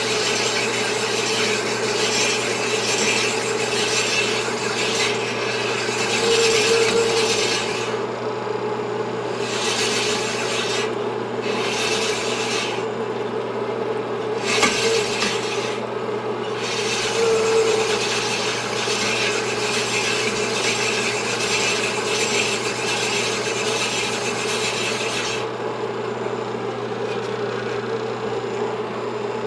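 Sunnen honing machine honing a Yamaha 250 two-stroke motorcycle cylinder: the abrasive stones rasp against the bore as the cylinder is worked back and forth on the spinning mandrel, over the machine's steady motor hum. The rasping breaks off briefly several times and stops about 25 seconds in, while the machine keeps running.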